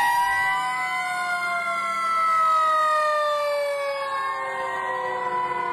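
Fire engine sirens wailing, several tones at once, some holding steady and others slowly falling in pitch.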